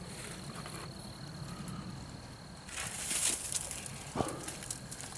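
Quiet outdoor evening ambience. A steady high insect tone stops a little over halfway through, followed by about a second of rustling and a brief falling chirp near the end.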